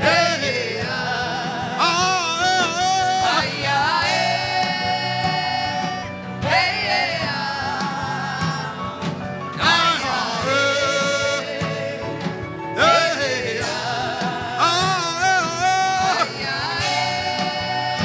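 Worship music: a singer holds long, wavering notes in a string of short phrases over a steady instrumental backing.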